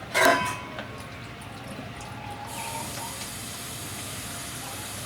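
Water running steadily from a tap, starting about two and a half seconds in. Just after the start there is a short, loud pitched sound.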